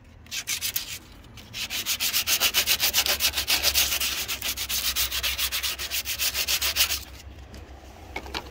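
Sandpaper rubbed by hand over body filler on a car's welded steel bulkhead, in fast back-and-forth strokes about six a second. A short burst comes first, then a longer run that stops about seven seconds in.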